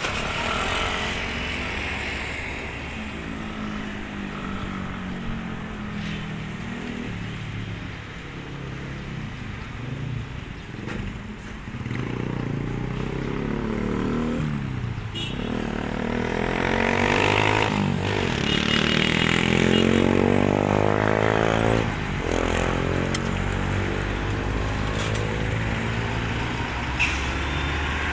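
Heavy diesel tractor-trailer passing close on the highway, its engine growing louder and sweeping in pitch as it goes by, over steady road traffic; loudest about two-thirds of the way through.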